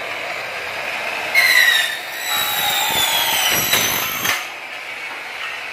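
Electric Makita miter saw cutting through an aluminium profile, with a second electric cutting saw running at the same time: a screeching whine that falls in pitch as the blade bites in, from about a second and a half in until about four seconds in. After that the motors keep running more quietly.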